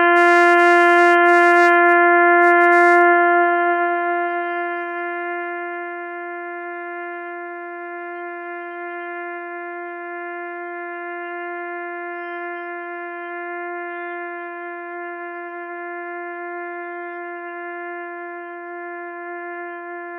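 A trumpet holds one long, unbroken note on a single steady pitch as a long-note tone exercise. It is loud at first, eases to a softer level about four seconds in, and holds there.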